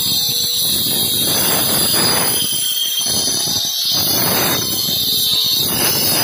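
Electric angle grinder with a cutting disc sawing a groove into a brick and mortar wall: a steady high whine, with a harsh grinding noise that swells each time the disc bites into the brick and eases as it lifts off, several times over.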